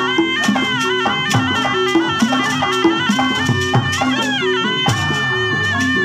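Tarompet, a Sundanese double-reed shawm, playing a continuous ornamented melody with sliding notes over quick kendang drum strokes.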